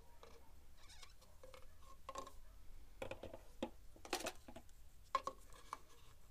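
Small clicks and scratchy rustles of hands working a small plastic syringe at a power-steering fluid reservoir, drawing out the old fluid. The noises come more often from about two seconds in, with a louder scratchy burst about four seconds in.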